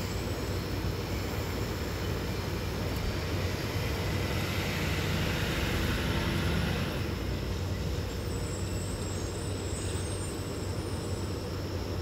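Steady low rumble and hiss of background noise, swelling louder about four seconds in and easing off about seven seconds in.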